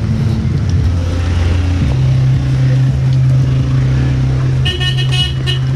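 Motor scooter engine idling steadily close by, its pitch stepping up about two seconds in. Near the end, a short stuttering run of high beeps.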